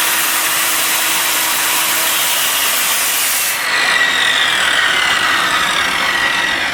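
Power saw cutting half-inch plexiglass, with a steady hiss of compressed air blowing the cut clear. About three and a half seconds in, the air hiss stops and the saw's whine falls steadily as the blade spins down after switch-off.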